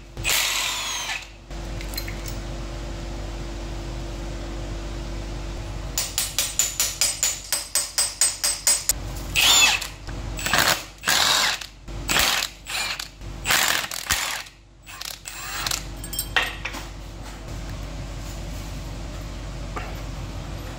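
A hand ratchet wrench clicking rapidly, about five clicks a second, for a few seconds, then a string of short power-tool bursts, as bolts are undone on the engine. A short power-tool burst also comes at the very start, and a steady low hum runs underneath.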